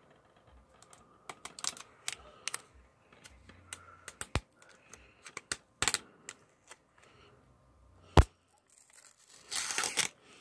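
Fingers picking at and peeling a security sticker off a plastic DVD case: scattered sharp clicks and taps of nails on the plastic, the loudest about 8 s in, then a short rasp of the sticker tearing away near the end.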